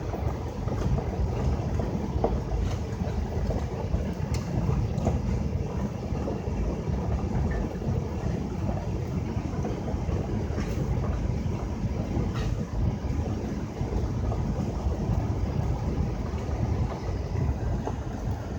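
Steady low rumble of a car driving slowly alongside a moving freight train, mixed with the train's diesel locomotive and rolling railcars, with a few light clicks.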